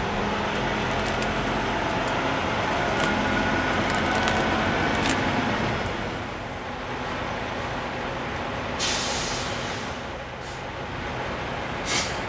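Steady rumble of diesel truck engines running close by, with two short air hisses, one about nine seconds in and one near the end.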